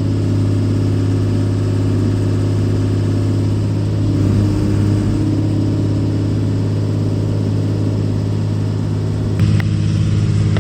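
Case 125B excavator's diesel engine running steadily, with one sharp knock near the end.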